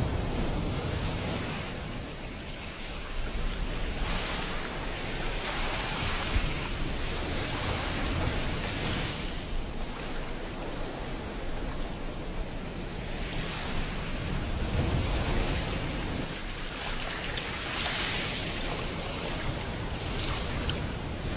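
Ocean waves breaking and washing on a beach: a steady hiss of surf that swells every few seconds as each wave comes in, then fades, with a low rumble underneath.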